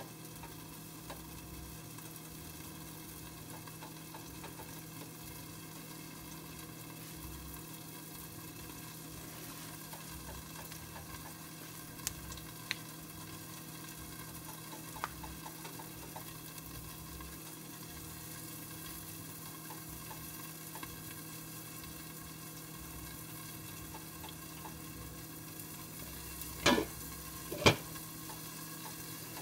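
Covered pot of chicken and rice cooking with a faint, steady sizzle under a low hum. Two sharp knocks about a second apart near the end.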